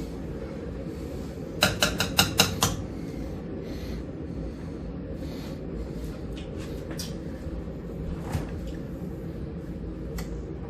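Cutlery clinking against a plate as someone eats: a quick run of about six clinks about two seconds in, then a few fainter taps, over a steady low hum.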